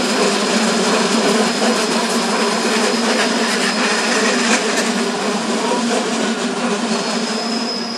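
Red DB S-Bahn electric multiple unit passing close by, a steady hum and rumble of its running gear and traction motors, easing slightly toward the end. A thin high wheel squeal grows louder near the end.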